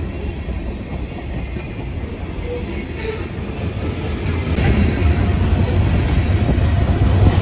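Freight train's covered hopper cars rolling past, their steel wheels on the rails making a steady low rumble and clatter that grows louder about halfway through.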